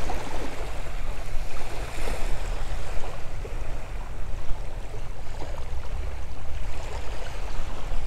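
Red Sea waves washing onto a sandy beach: a steady wash of splashing, lapping water.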